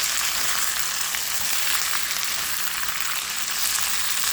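Vegetables frying in hot olive oil in a wok: a steady sizzling hiss dotted with fine crackles.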